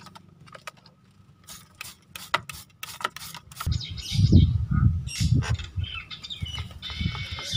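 Nias hill mynas calling from their cages: a run of sharp clicks, then louder, denser calls from about halfway, and a held whistling call near the end.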